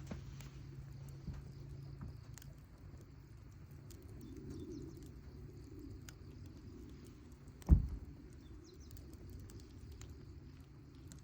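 Quiet outdoor ambience with a steady low hum and scattered faint clicks and crackles, broken by one loud, dull thump about three-quarters of the way through.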